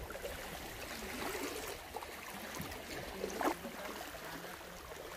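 Steady wash of shallow sea water, with a faint distant voice about three and a half seconds in.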